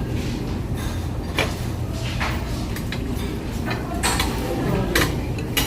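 Cutlery and dishes clinking several times as someone eats, over a steady low background hum.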